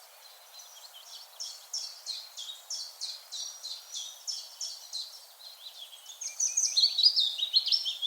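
Songbirds singing: a run of short, repeated high chirps, joined about six seconds in by a louder, faster twittering song.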